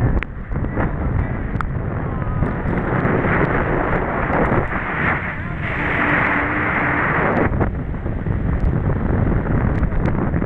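Wind buffeting the microphone and water rushing and spraying under a towed inflatable tube skimming across a boat's wake at speed, with scattered short clicks and a louder rush about six seconds in.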